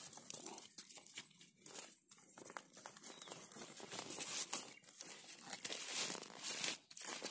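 Fresh banana leaves rustling and crinkling as they are folded by hand into a bundle, growing busier and louder about halfway through.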